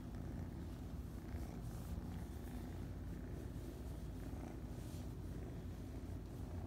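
A kitten purring steadily while it is being stroked.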